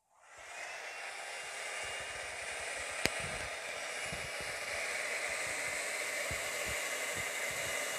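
Handheld electric hair dryer running, blowing a steady rush of air with a faint high motor whine, as it blows wet acrylic paint outward into a bloom. It switches on just after the start, with a single sharp click about three seconds in.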